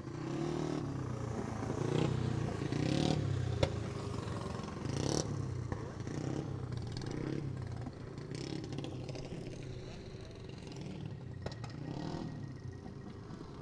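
Pack of racing karts' small engines running at low pace speed on a dirt oval before a restart. The sound swells and fades as the karts pass.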